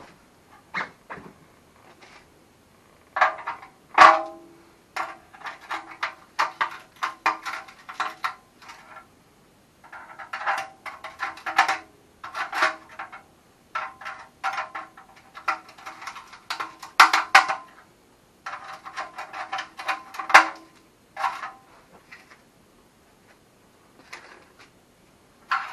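A screwdriver prying and scraping at the steel shell of an old Yamaha Grizzly 660 OEM muffler, in irregular bursts of rapid metallic clicks and scrapes. The muffler can rings with a faint steady tone under each burst.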